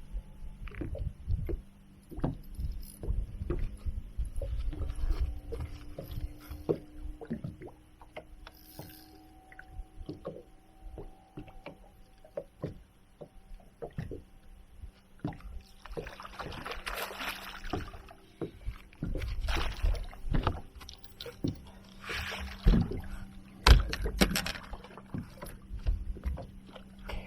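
A hooked smallmouth bass being fought and landed beside a small fishing boat: water splashing in bursts, with knocks and clicks of handling and tackle against the boat, and two loud thumps near the end. A steady low hum runs underneath.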